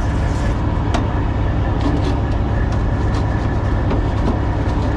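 Steady low rumble of an idling truck engine, with a few faint clicks and rubbing sounds on top.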